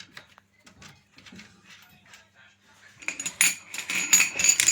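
Small metal parts and tools clinking and rattling as they are handled: a few light clicks, then a louder run of quick clinking from about three seconds in.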